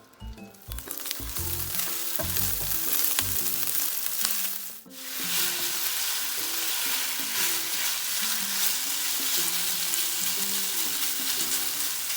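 Chicken and ginger-garlic paste frying in hot olive oil in a pan: a loud, steady sizzle that drops out briefly about five seconds in.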